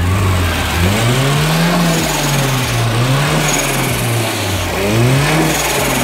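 Volvo 240's turbocharged B230FT inline-four engine running, revved up and back down about three times in quick blips.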